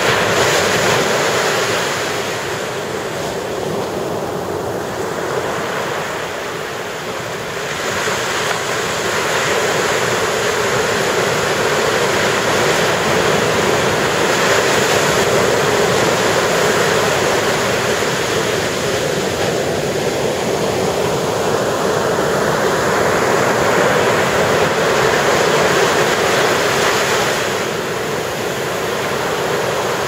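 Ocean surf breaking and washing up the shore: a continuous rush that swells and eases with each wave, growing louder about a quarter of the way in and dipping briefly near the end.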